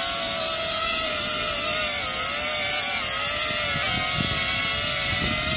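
Hover Camera Passport quadcopter hovering, its propellers giving a steady high-pitched whine.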